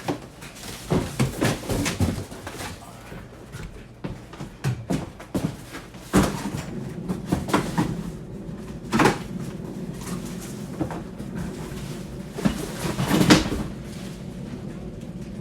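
Irregular knocks, clunks and rattles of lighting-stand parts being handled and fitted together, loudest about a second in, around six and nine seconds in, and near the end.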